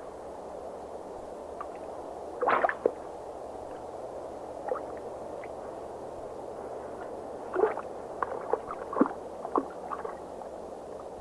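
Underwater gurgling and bubbling over a steady watery hiss, with short sharp gulping sounds about two and a half seconds in and several more between about seven and a half and ten seconds in.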